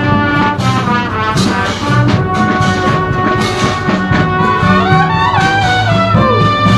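Drum and bugle corps playing: a brass line of G bugles sounding full chords over drums, with a falling slide in the horns about five to six seconds in.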